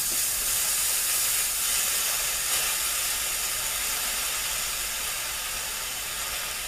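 Hot Hakko soldering iron tip pressed into a wet cleaning sponge: the water boils off in a steady steam hiss that slowly fades as the tip cools from about 395 °C toward 300 °C.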